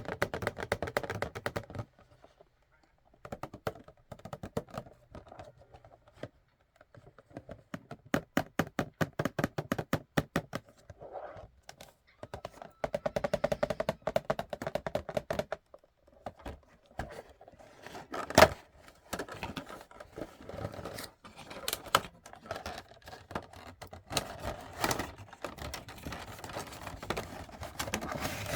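Hands handling a Funko Pop box and its packaging: fast runs of taps and clicks, several per second, broken by short pauses, with one sharp knock about halfway through.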